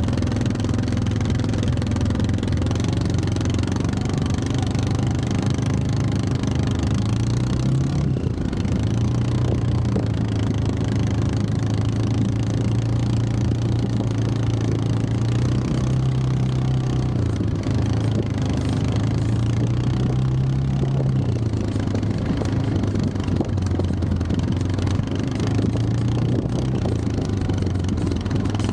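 ATV engine running while riding a dirt trail, its pitch rising and falling several times as the engine speed changes.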